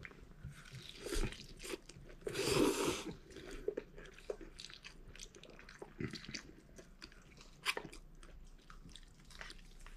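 A person eating japchae glass noodles: slurping the noodles in off chopsticks and chewing with wet mouth clicks. The biggest sound is a slurp about two and a half seconds in.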